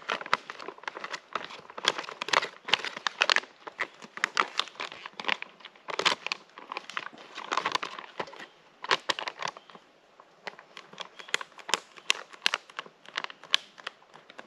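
Crinkling and crackling of a Peak Refuel freeze-dried meal pouch being handled, just filled with boiling water to rehydrate the meal. The rustling comes in irregular bursts with a short lull about ten seconds in.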